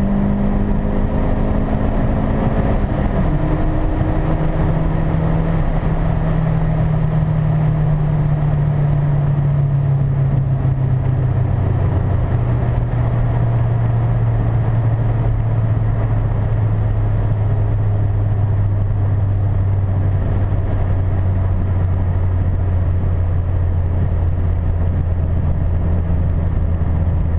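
Turbocharged 2.2-litre Ecotec four-cylinder of a 2005 Chevrolet Cobalt with a ZZP S256 turbo kit, heard from inside the cabin while driving. The engine note drops in pitch about three seconds in, then sinks slowly and steadily as the revs come down, over steady road rumble.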